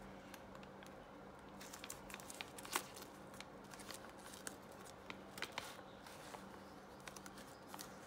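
Thin plastic bag crinkling and crackling in the hands as it is unfolded and pulled open, in irregular bursts, the sharpest crackle just under three seconds in.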